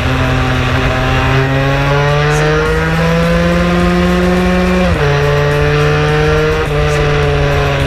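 Two-stroke Vespa scooter engine running hard at high revs, close to the camera. Its pitch climbs slowly, drops sharply about five seconds in as it changes gear, then steps back up a second and a half later.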